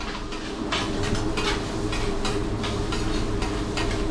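Chopped garlic sizzling on a teppanyaki steel griddle, with metal spatulas scraping and tapping the plate in an irregular rhythm, over a steady low hum.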